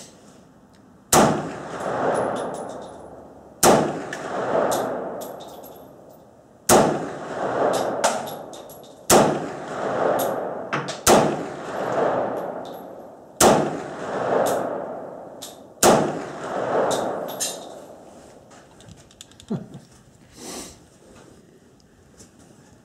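Romanian Tokarev pistol in 7.62x25 fired seven times at a slow, even pace, a shot every two to three seconds. Each sharp crack is followed by a long rolling echo. A couple of faint clicks come near the end.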